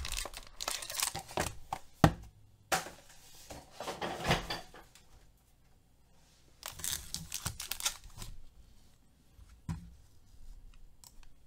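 Paper and foil packaging of a sports-card box being torn and crinkled in short bursts as the box is opened and its foil pack taken out and handled, with a sharp click about two seconds in and a few lighter clicks near the end.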